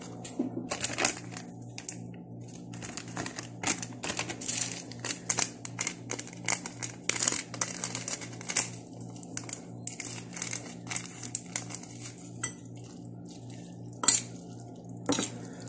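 A utensil clinking and scraping against a dish while drained instant noodles are stirred together with their sauce, in irregular clatters, over a faint steady low hum.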